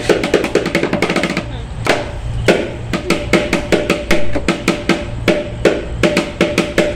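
Percussion music accompanying a dance: a fast drum roll for about a second and a half, then steady drum beats two or three a second.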